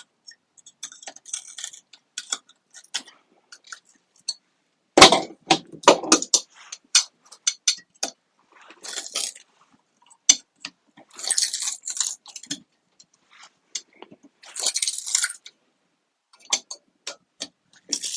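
Something glued on being peeled off a Tesla Model S battery module: irregular crackling and snapping in bursts, with the loudest sharp cracks about five and six seconds in.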